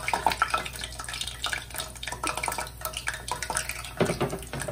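Donut dough frying in hot oil in a stainless-steel pot: the oil crackles and sizzles densely, with a louder knock about four seconds in.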